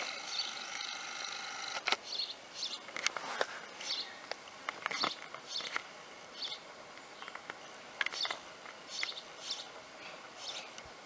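Baby beaver kit whining: one long high-pitched cry in the first two seconds, then a run of short high squeaky calls about every half second, with scattered sharp clicks.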